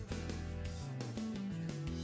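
Background music with guitar, in a steady rhythm.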